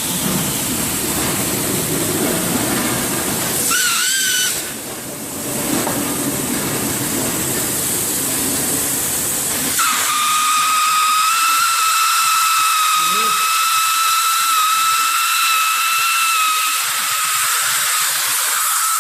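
Hot air seam sealing machine running, its hot-air blower hissing. About ten seconds in the low rumble drops away and a steady high whine comes in over the hiss.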